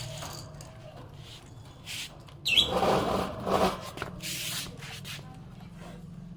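Pet budgie chirping and chattering in short bursts, with a short high chirp about two and a half seconds in followed by about a second of louder chatter.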